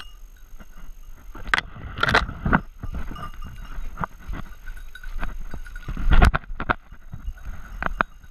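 Footsteps and brush crashing as a walker pushes through wet woodland undergrowth: irregular crunches and snaps, the loudest about two seconds in and again about six seconds in. A small bell jingles steadily behind them.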